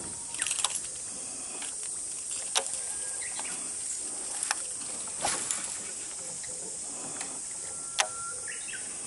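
Summer outdoor ambience on the water: a steady high hiss of insects, broken by scattered sharp clicks and knocks every second or two.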